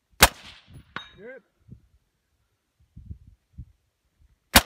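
Two rifle shots about four seconds apart. Under a second after the first comes the short, faint ring of the bullet striking a steel target at 150–200 yards.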